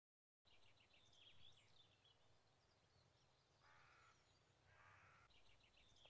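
Faint outdoor birdsong: high twittering phrases of small birds just after the start, then two harsh, crow-like calls about a second apart in the middle.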